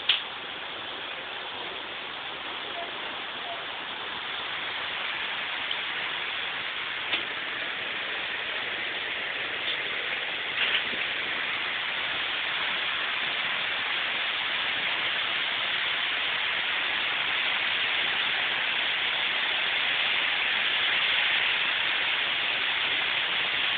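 Heavy storm rain pouring down steadily and slowly growing louder, with a few sharp taps near the start and around the middle.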